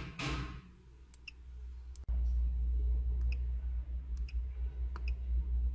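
Light clicks as a stylus taps the touchscreen of a handheld diagnostic scanner, about six taps spaced unevenly. A low steady hum runs underneath and gets louder about two seconds in.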